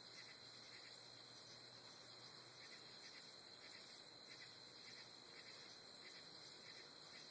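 Near silence: faint night insects, likely crickets, chirping about twice a second over a steady high-pitched tone, with no thunder.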